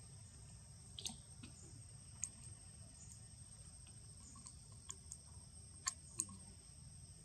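Sparse faint clicks and light crackles, a handful scattered over several seconds against a quiet steady background: macaques moving on dry leaf litter and stone.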